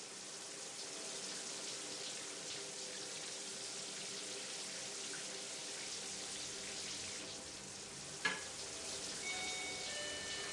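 Kitchen tap running into a stainless-steel sink while steel dishes are washed under the stream, with one sharp metal clink about eight seconds in.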